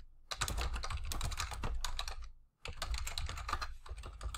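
Typing on a computer keyboard: quick runs of keystrokes, with a short pause about two and a half seconds in before the typing resumes.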